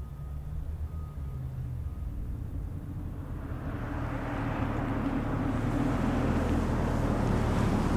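Mazda CX-5 small SUV driving in, heard from the side: a low engine hum, then engine and tyre noise that swells steadily louder from about three seconds in as the car draws near.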